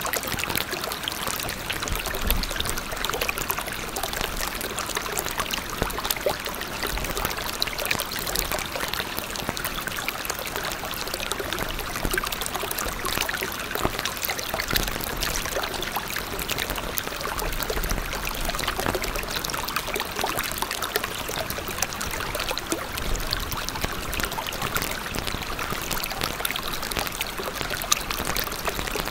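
Steady sound of running water, like a flowing stream, an even rushing hiss with many small splashes and trickles throughout.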